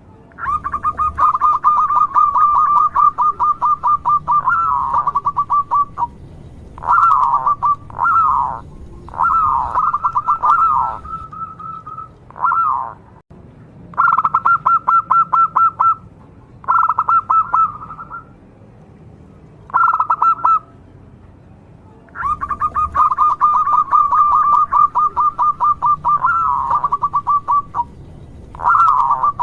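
Zebra dove (perkutut) singing: two long runs of rapid staccato cooing notes, each lasting about five seconds, one near the start and one about three-quarters through, with shorter cooing phrases in between.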